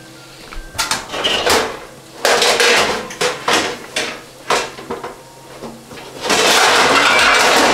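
A utensil scraping and clattering against a cooking pot as the frying base for osh is stirred, in several short bouts. Near the end there is a louder steady hiss of frying.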